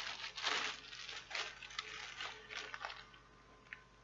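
Clear plastic bag crinkling and rustling in irregular bursts as an LED magnifier head is handled and pulled out of it, dying away about three seconds in.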